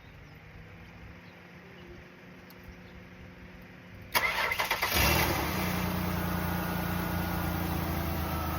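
2004 Ford Taurus V6 starting. After a few seconds of faint steady hum, the starter cranks for under a second just after four seconds in, then the engine catches and runs at a steady idle. The car now starts because its dirty computer ground terminals have been cleaned, curing the no-crank, no-start fault.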